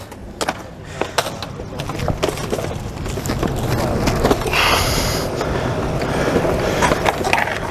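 Longboard wheels rolling over pavement under a homemade TV skateboard: a steady rumble that builds about two seconds in, after a few clicks and knocks at the start.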